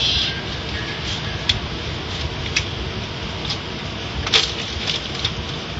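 Automatic tunnel car wash equipment running: a steady hiss and rumble with scattered sharp clicks and knocks, the loudest about four seconds in.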